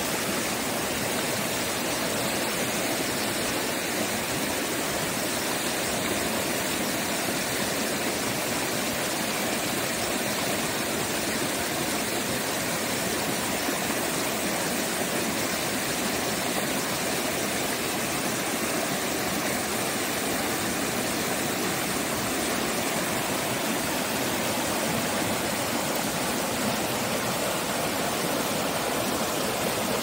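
Mountain stream running high and fast, water rushing steadily over rocks and small cascades.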